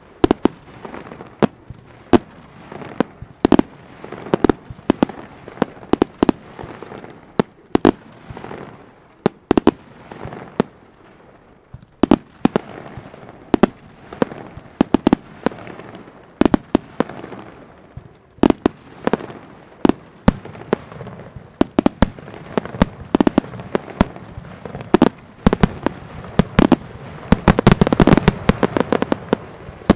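Aerial fireworks display: a string of sharp bangs, each trailing off in a short echo. The bangs come thick and fast in a dense cluster near the end.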